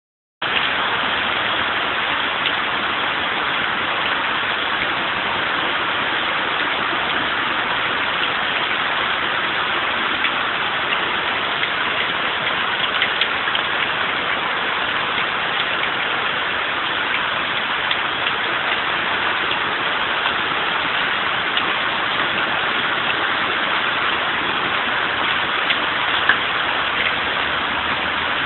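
Hail pelting down on paving, steps and a hedge: a dense, steady hiss with scattered sharper ticks from individual hailstones striking.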